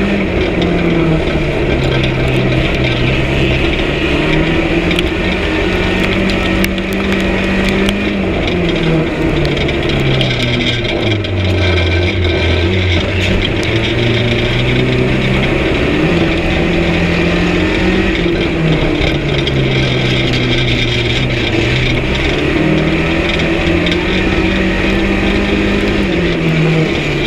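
An unlimited banger racing car's engine heard from inside the stripped cabin, running hard. Its note climbs and drops back every few seconds as the driver accelerates and lifts off round the track.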